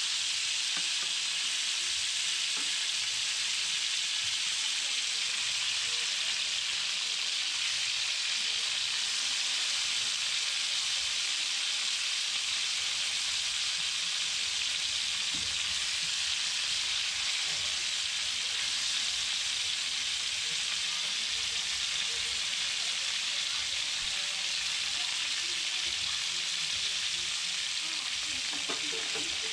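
Tarantulas frying in hot oil in a steel wok: a steady sizzle.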